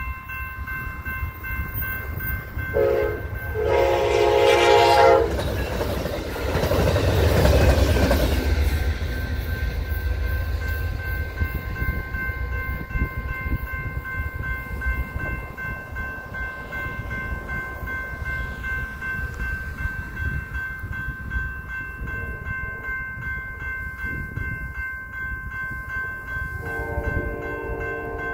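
Freight train of autorack cars rolling through a grade crossing, a low rumble of wheels on rail, with the crossing bell ringing steadily throughout. A train horn sounds in two short blasts about three seconds in and again briefly near the end, and a loud rush of noise swells and fades a few seconds after the first blasts.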